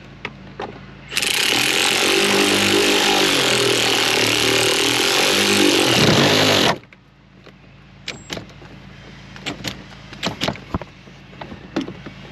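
A power tool runs for about five and a half seconds, driving in the final bolt of a clutch master cylinder. It starts and stops abruptly and its pitch wavers under load. Light clicks and knocks of hand tools follow.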